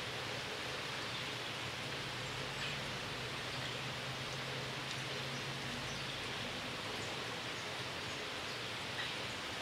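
Steady outdoor background hiss with a faint low hum underneath.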